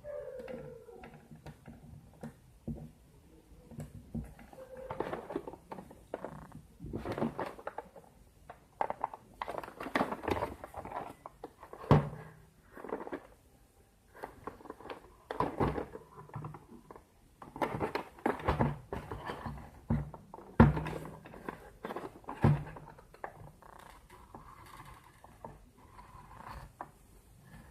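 A shipping package being opened by hand: irregular crinkling and scraping of packaging with scattered knocks, and a few sharper thumps partway through.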